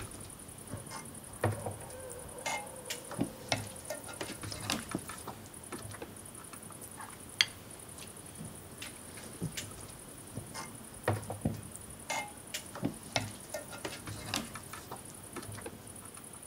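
Quiet table sounds: scattered light clicks and taps of glasses and small movements, over a faint steady high hiss.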